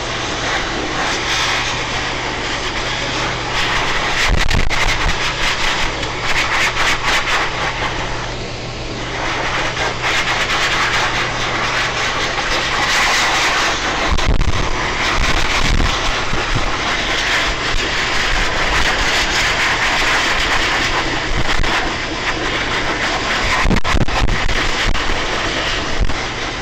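High-velocity dog grooming dryer blowing air steadily through its nozzle, a constant hum under the rush of air, with a few low thumps as the nozzle is worked through the fur and a brief dip about nine seconds in.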